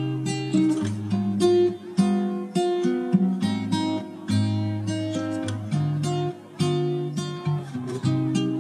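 Background music: acoustic guitar playing plucked notes and chords at an even, relaxed pace.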